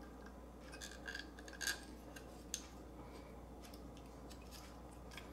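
Small RC helicopter parts being handled and fitted by hand: a few faint light clicks and rubs of hard plastic and metal, the sharpest about a second and a half in.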